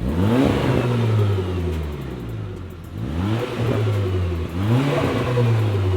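Mk6 Golf R's turbocharged 2.0-litre four-cylinder revving through a Scorpion non-resonated valved cat-back exhaust, blipped three times. Each time the pitch climbs quickly and falls away more slowly. On the throttle the exhaust valve is open and the note is loud.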